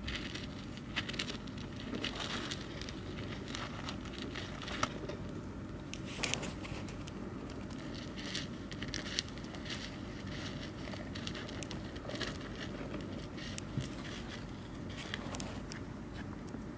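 Soil crackling and rustling in irregular small clicks and scrapes as a common rain frog digs itself into the substrate.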